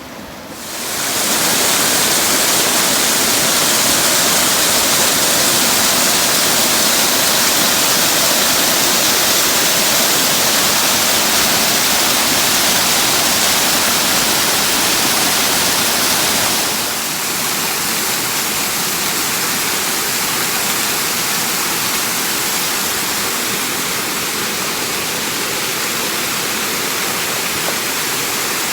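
Waterfall rushing: a loud, steady wash of falling water. It swells up about a second in, then drops slightly and sounds a little duller a little over halfway through.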